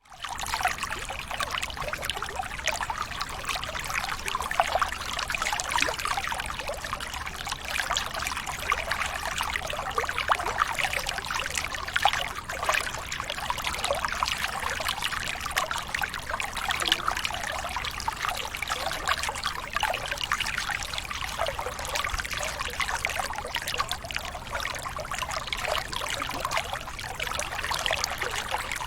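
Running water trickling and splashing steadily, a dense patter of small splashes.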